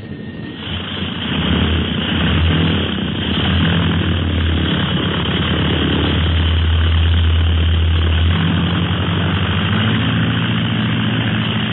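Radio-drama sound effect of a propeller plane's motors running up for takeoff: the engine noise swells over the first couple of seconds, then holds as a steady drone, with the engine note shifting about eight seconds in.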